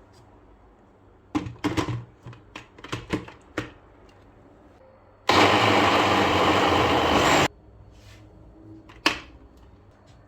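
Electric blender run in one short burst of about two seconds, starting and stopping abruptly, after a run of clicks and knocks; a single knock follows near the end.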